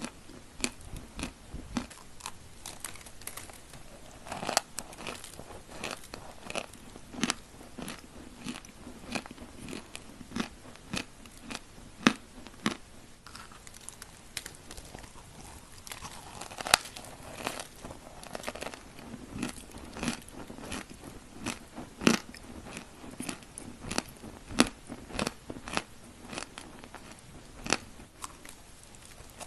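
A person biting and chewing chalk cookies (pressed edible chalk) close to the microphone: an irregular run of sharp, dry crunches, a few a second, some much louder than the rest.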